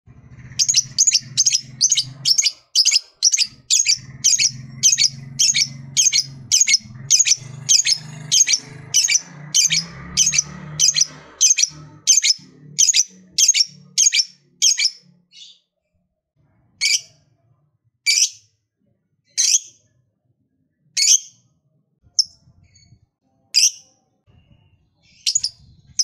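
Caged lovebird ngekek: a long, fast run of shrill, sharp calls at about two a second, which after some fifteen seconds slows to single calls one to two seconds apart. A low hum runs underneath the first half.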